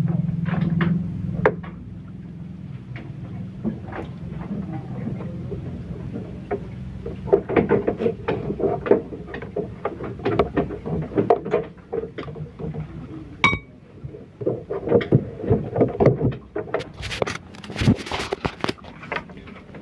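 Handling noises on a wooden slatted floor: a low hum that stops after about a second and a half, then scattered light knocks and rustles with one sharper clink partway through. Near the end comes a dense run of rubbing and crackling as a hand grips the phone and picks it up.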